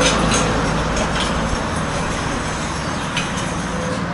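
Steady street traffic noise: passing vehicles' engines and tyres on a city road, with a few light clicks.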